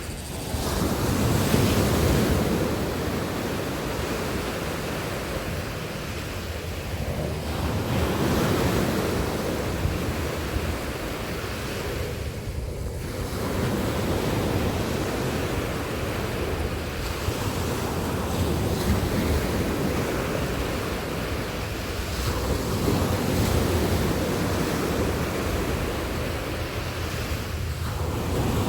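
Sea waves breaking on a beach, the surf swelling and washing back every several seconds, with wind rumbling on the microphone.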